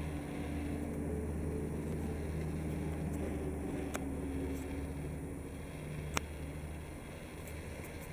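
A steady low engine rumble with a few slowly drifting tones, and a sharp click about six seconds in.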